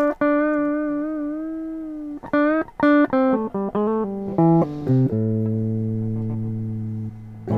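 Electric guitar played clean: one held note with a slight vibrato wobble, then a quick run of short single picked notes, then a chord left ringing for about two seconds.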